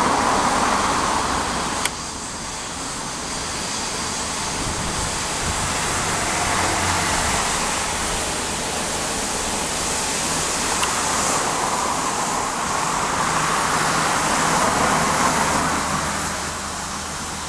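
Airbus A350-900's Rolls-Royce Trent XWB jet engines running at taxi power as the airliner taxis past: a steady jet rush that swells toward a peak about three-quarters of the way through and eases near the end. A single sharp click comes about two seconds in.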